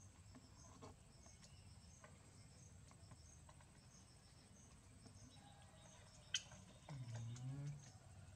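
Near silence with faint, evenly repeating high chirping, typical of insects. A single sharp click about six seconds in, then a short low vocal sound near the end.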